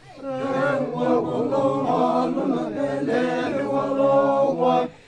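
A group of men chanting together in unison, a traditional group chant with held and gliding notes, breaking off briefly near the end.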